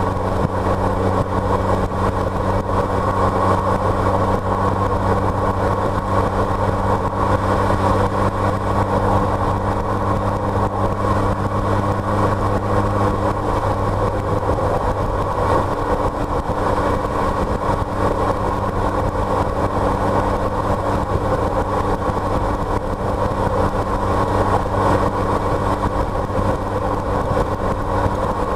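Car driving at a steady pace: continuous engine and road noise, with a steady low engine hum that fades out about halfway through, leaving the road noise.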